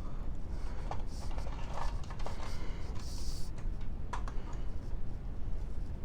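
Fire alarm pull station being handled and reset: scattered light clicks and rattles of its parts, with a short hiss about three seconds in.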